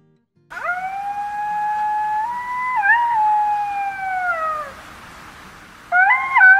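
A canine howling: one long, steady howl of about four seconds with a brief wavering lift in the middle, sliding down in pitch at the end, then a second, shorter howl that jumps up and down in steps begins near the end.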